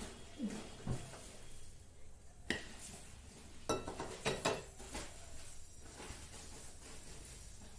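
Steel frying pan handled and set down on a gas stove's metal grate: a few scattered metal knocks and clinks, with a sharp one about two and a half seconds in and a quick run of them about a second later.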